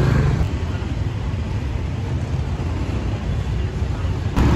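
Steady low rumble of street traffic with engines running. Near the end it cuts abruptly to louder, fuller traffic noise.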